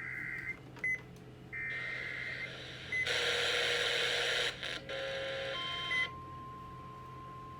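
Emergency Alert System broadcast tones: two buzzy electronic data bursts about a second long near 2 kHz with short bleeps between them, a loud burst of static, then a single steady alert tone near 1 kHz that starts about five and a half seconds in.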